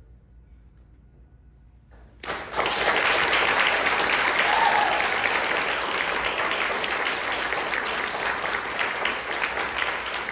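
A quiet room for about two seconds, then audience applause breaks out suddenly and continues steadily.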